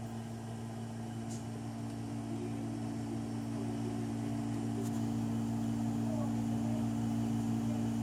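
A steady low mechanical hum with no rise and fall, slowly growing louder.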